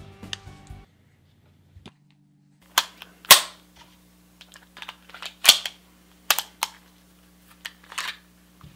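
Metallic clicks and snaps of a 1920s P.08 Luger pistol's mechanism being worked by hand, about eight sharp clicks spread over several seconds, the loudest one early in the run.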